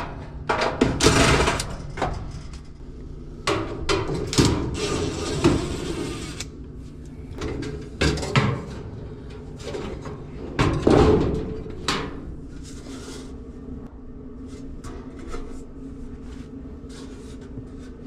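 Clattering and knocks of tools and metal dryer parts being handled, in bursts for the first six seconds and again around eight and eleven seconds, then lighter occasional clicks, over a steady low hum.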